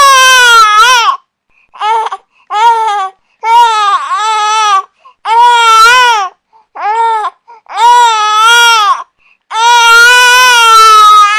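Infant crying loudly in a string of high-pitched wails, each lasting from under a second to about a second and a half, with short breaths between them.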